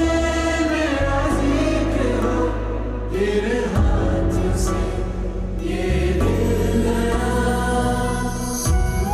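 Soundtrack music: voices singing together in long held notes over deep bass notes that change every second or so.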